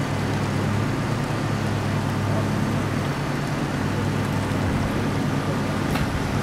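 A vehicle engine idling steadily, a low even hum, with a short click near the end.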